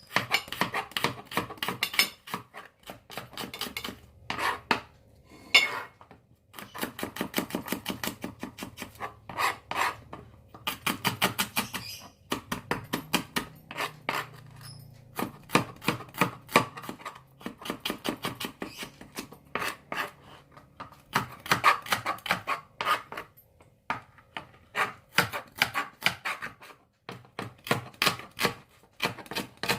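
Kitchen knife slicing shallots, garlic and green chilies on a cutting board: quick runs of knife strokes, several a second, broken by short pauses.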